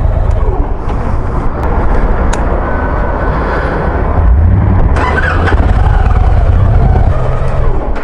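Victory Cross Country motorcycle's V-twin engine running with a deep, loud rumble, getting louder about halfway through.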